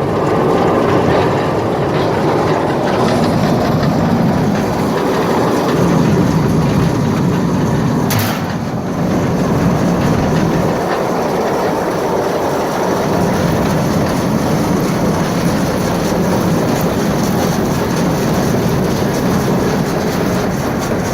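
Arts-Way 475M grinder mixer running, a loud steady mechanical rattle and rumble, with one sharp click about eight seconds in.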